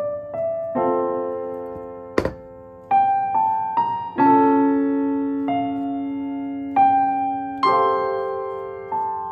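Background piano music: slow notes and chords struck one after another, each ringing out and fading. One sharp knock about two seconds in.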